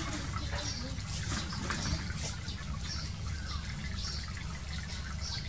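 Shallow running water gushing and splashing steadily through a pen crowded with frogs.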